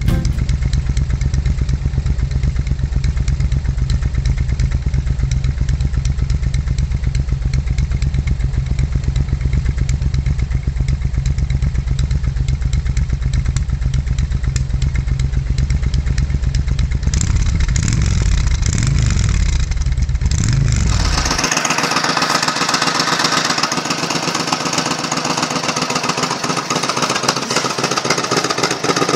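Suzuki Intruder VS1400 V-twin motorcycle engine idling with a steady, deep exhaust note, then revved up and down a few times. After a sudden cut, another recording of the bike running, sounding thinner with much less bass.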